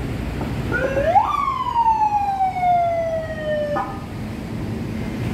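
A single siren whoop over street traffic noise: the tone rises quickly, glides slowly down for a couple of seconds, then cuts off.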